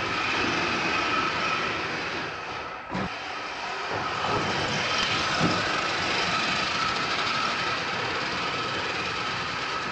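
Electric RC monster trucks driving hard on a smooth floor: a steady high motor whine over tyre and drivetrain noise. There is a short dip and a knock about three seconds in.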